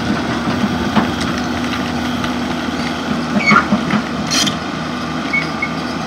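Excavator's diesel engine running steadily under load as the machine climbs, with a few short metallic knocks and squeaks about three and a half to four and a half seconds in.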